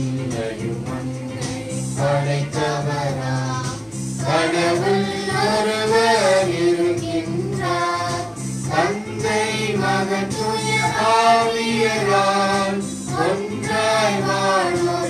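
Choir singing a hymn in church, with sustained accompaniment chords held underneath.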